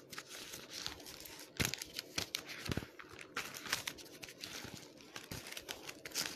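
Thin Bible pages rustling and crinkling as they are leafed through, in irregular faint rustles with small sharp clicks.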